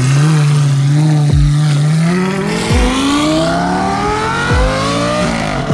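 A car's engine pulling away: its note holds steady for about two seconds, then rises steadily as the car accelerates, and drops off just at the end.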